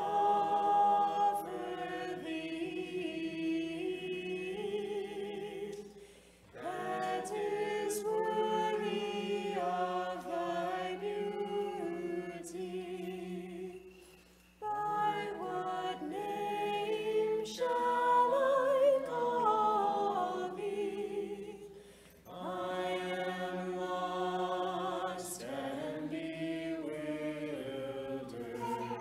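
Unaccompanied choir singing Orthodox liturgical chant in several voices. The singing comes in long phrases, with brief breaks about 6, 14 and 22 seconds in.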